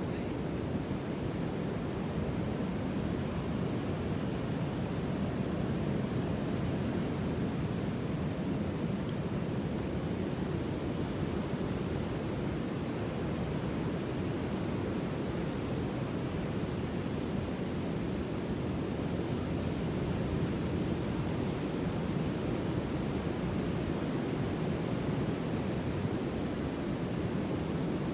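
Sea surf: a steady, even rush of waves with no single breaker standing out.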